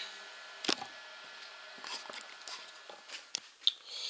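Scattered sharp clicks and light knocks of metal parts and tools being handled at a workbench, the loudest near the end, followed by a short hiss.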